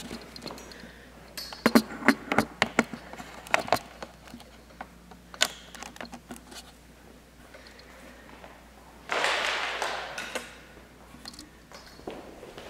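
Handling noise from a handheld camera moving around a gym: scattered sharp taps and knocks in the first few seconds, then a short rustling burst about nine seconds in.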